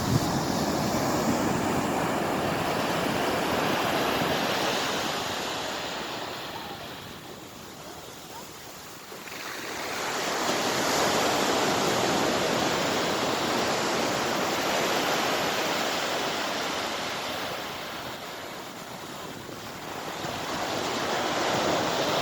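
Sea waves breaking and washing up on a beach, the surf swelling and ebbing slowly, with a lull about eight seconds in and another near the end.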